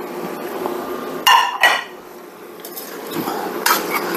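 Metal utensil clanking and scraping against a pan and dish as cooked chicken is added back into a pan of stir-fried vegetables, with two ringing clanks about a second and a half in and more clattering near the end.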